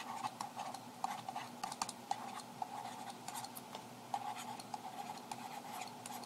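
Digital pen stylus writing a word on its writing surface: light irregular scratching strokes and small taps, over a faint steady hum.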